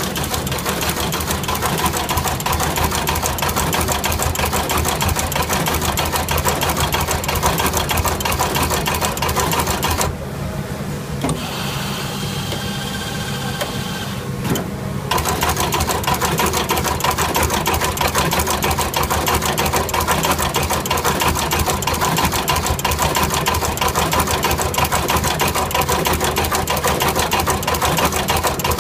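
Automatic radial-lead component insertion machine running, its insertion head cycling in a rapid, steady mechanical clatter over a low hum. The clatter stops for about five seconds about a third of the way in, then starts again.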